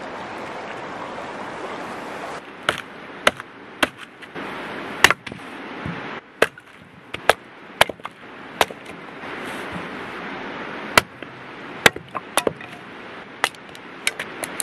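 Steady rushing of a river over stones for the first couple of seconds, then a hatchet splitting firewood into kindling. The hatchet gives about fifteen sharp cracks at irregular intervals.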